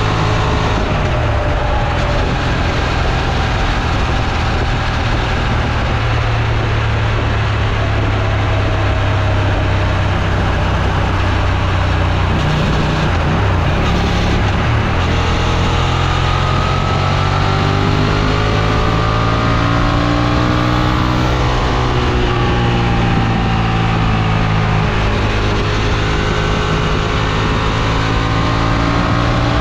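Honda Transalp XL750's 755 cc parallel-twin engine running under load, steady at first, then rising and falling in pitch several times in the second half as the throttle is opened and closed.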